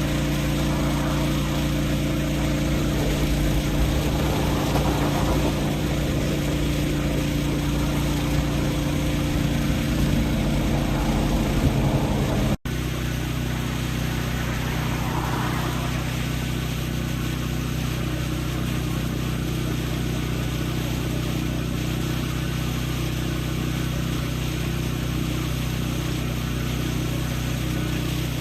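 Pressure washer engine running steadily. About halfway through it drops out for an instant and resumes with a slightly different hum.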